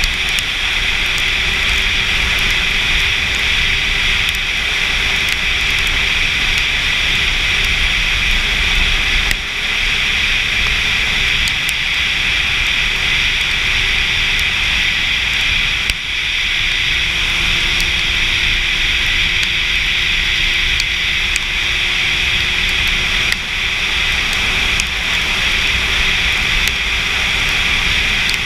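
Sport motorcycle cruising at speed on a wet road: steady wind rush over the camera mount and tyre hiss, with the engine running evenly underneath.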